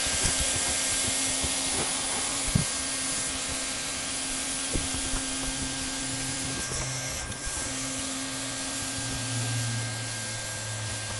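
Handheld hot-air welding gun blowing steadily, a constant hiss with a motor whine and hum, as it heats the lap seam of an SBS bitumen roofing membrane.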